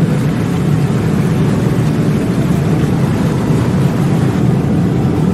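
A loud, steady rushing noise, heaviest in the low range, with no break or change.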